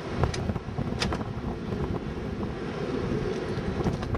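Chevrolet Monte Carlo SS V8 running fast and steady on a Holley 600 carburetor that the owner says sticks wide open, with wind on the microphone. Two sharp clicks come within the first second.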